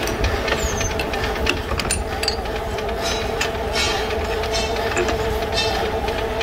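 Steady machine hum of a metal lathe, with scattered clicks and rattles of steel chips and the turned part being handled.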